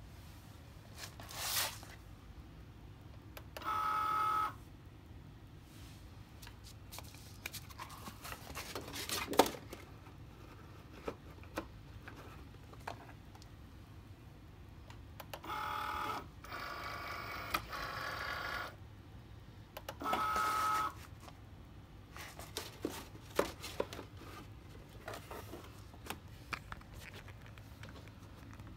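Cricut cutting machine's motors whirring in three short runs, about a second, then about three seconds, then another second, with scattered clicks and knocks between them. The machine is acting up.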